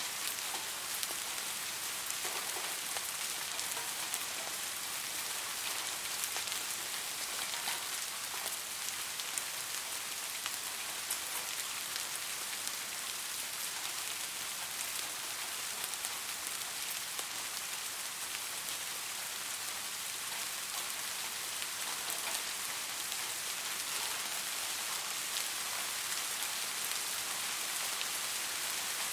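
Soft rain falling steadily: an even hiss of rain with many fine, light drop patters, no thunder.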